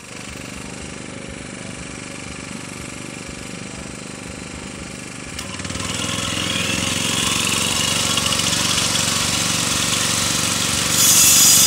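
Electric angle grinder with a cutting disc running with a steady hum. About five seconds in it grows louder and harsher as the disc cuts into the concrete block wall, chasing a groove for electrical wiring, and it steps up again near the end.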